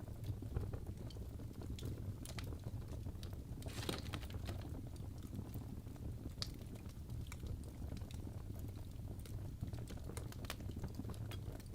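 Wood fire crackling in a fireplace: irregular pops and snaps over a steady low rumble of the flames, with a brief flurry of crackles about four seconds in.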